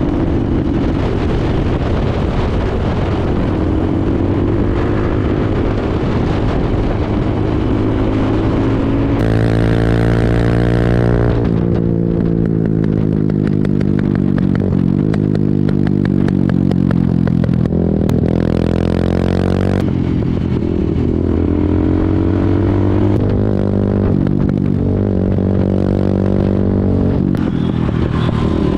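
Motorcycle engine running at road speed with wind noise over it, its pitch climbing and falling several times as the bike speeds up and eases off.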